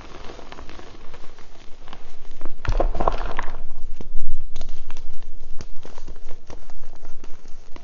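Reformed gym chalk crushed and crumbled by hand: dry, crisp crunching and crackling of chalk lumps breaking, with powder and pieces falling onto the heap. A longer, louder crunching rush comes about three seconds in, then many small sharp crunches.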